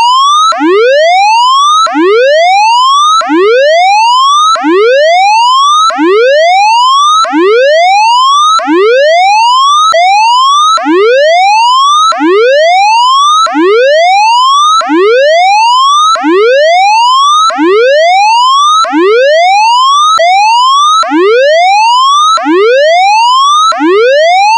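Air-raid 'all clear' siren tone: a loud siren whooping in repeated rising sweeps, each climbing in pitch and then dropping back sharply, about one every second and a half. It is the signal that the danger of an air raid has passed.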